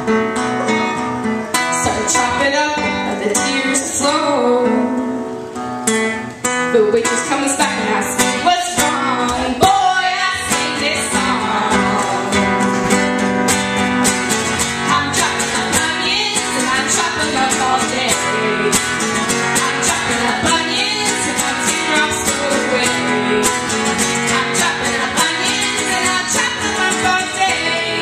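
Acoustic guitar strummed and picked in a live song, with a brief dip in loudness about five seconds in.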